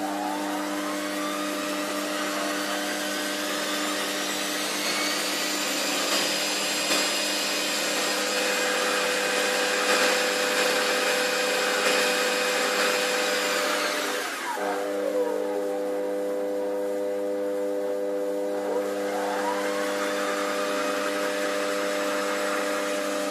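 Quantum D250x550 Vario benchtop lathe running, its motor whine rising in pitch as the variable speed is turned up, holding, dropping about fourteen seconds in, then rising again. Underneath is a steady humming from the Vario speed control, described as a transformer sound.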